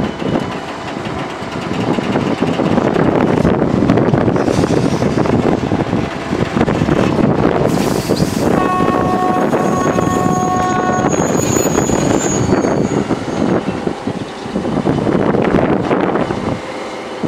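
Freight train of sand-loaded hopper wagons rolling slowly along the track, a steady rumble and clatter of wheels, mixed with the running of a big electric bucket-wheel excavator loading sand into them. A horn sounds for about two seconds midway.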